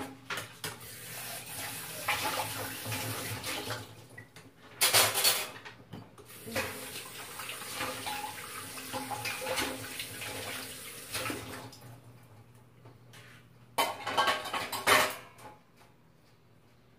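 Water running from a kitchen tap into a stainless-steel sink in spells, with louder clatters of metal dishware about five seconds in and again near fourteen seconds.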